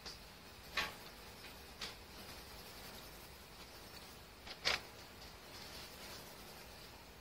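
Coloured pencil scratching on paper in short shading strokes, faint, with a few louder strokes: about a second in, near two seconds, and the loudest about two-thirds of the way through.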